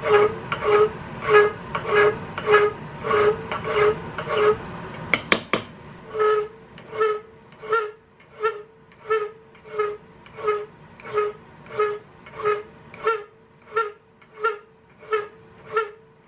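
Hand file rasping back and forth across a small steel buckhorn rear sight clamped in a vise, a little under two strokes a second, each stroke carrying a ringing tone. About five seconds in comes a brief clatter, then the strokes resume, quieter, as the front end of the sight is dressed even.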